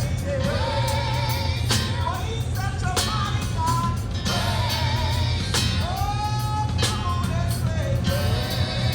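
Loud amplified church music carrying from outdoors: a singer with heavy bass, drums and guitar, the bass strongest and steady, with drum hits at a regular beat.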